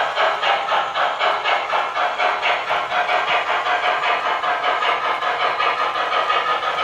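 Sound decoder of an MTH HO-scale GS4 4-8-4 steam locomotive playing its steam exhaust chuffs through the model's speaker, an even rhythm of about five chuffs a second that quickens slightly.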